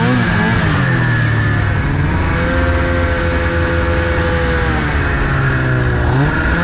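Snowmobile engine running under way, its pitch following the throttle: it falls off early, holds steady through the middle, drops again after about five seconds, then climbs sharply near the end.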